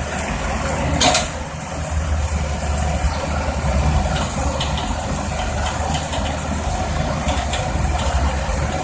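Heavy diesel engine of a tracked excavator running steadily, with a short hiss about a second in and a few faint clanks later.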